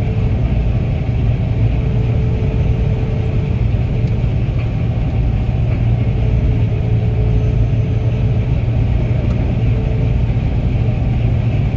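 Gleaner combine's engine and threshing machinery running steadily, heard from inside the cab as a constant deep rumble with a faint steady hum above it.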